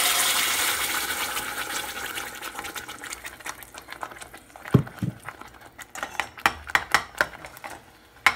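Ground tomato-onion masala paste poured into hot oil in a stainless steel pan, sizzling loudly at first and dying down over the first few seconds. Then a metal spoon stirs the paste, scraping and knocking against the pan in a run of sharp clinks.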